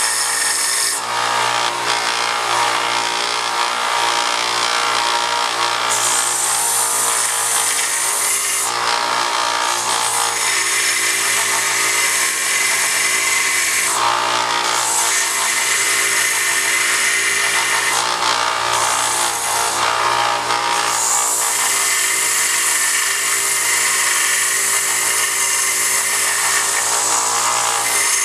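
Bench belt grinder running with a steady motor hum while a hand-forged steel awl-chisel is ground on its belt. The grinding hiss swells and drops several times as the steel is pressed to the belt and eased off.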